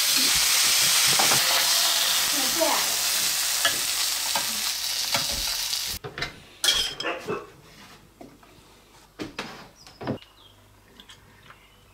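Hapuka steaks sizzling loudly in butter and oil in a frying pan, a steady hiss that cuts off about six seconds in. After it, a few quiet clicks and knocks of a spoon and pot against a plate as the sauce is spooned onto the fish.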